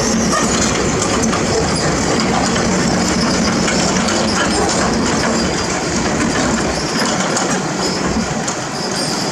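Steel crawler tracks of a heavy tracked machine clanking and rattling over a diesel engine running under load. The low engine rumble thins out about seven seconds in.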